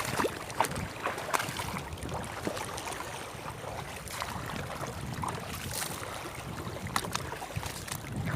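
Water splashing and lapping under a steady low rumble of wind on the microphone, with a few short sharp knocks.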